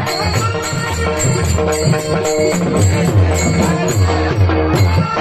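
Devotional kirtan music: held reed-organ notes over low hand-drum strokes, with small cymbals clinking in an even beat about three times a second.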